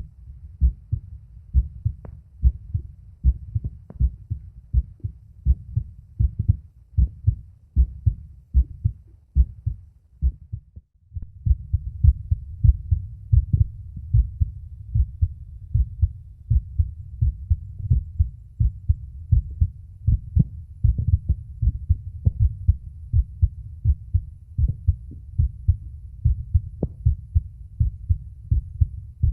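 A man's heartbeat recorded through a phone microphone pressed to the chest: a steady rhythm of low, dull thumps. About a third of the way in the sound dips briefly, and after that the beats sit over a louder background rumble.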